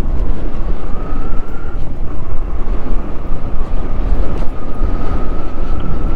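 Motorcycle riding along a sandy dirt track: wind buffeting the microphone over the running engine and tyres, with a faint steady high whine from about a second in.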